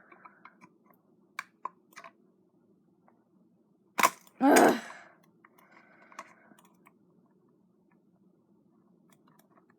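Knife prying at a Razer DeathAdder mouse's plastic shell: a few light clicks and scrapes, then one sharp crack of the plastic snapping about four seconds in, followed at once by a short grunt.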